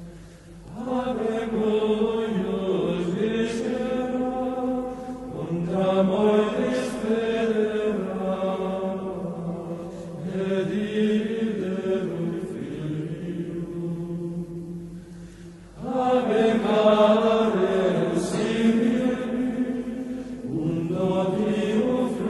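Background music of slow sung chant, in long held phrases that begin anew every few seconds.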